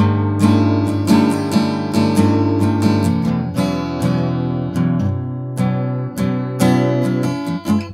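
Steel-string acoustic guitar, capoed at the second fret with its high E string tuned down to D, strumming open chords with a suspended-sounding ring. About two strums a second, the chord changing about three seconds in, stopping just before the end.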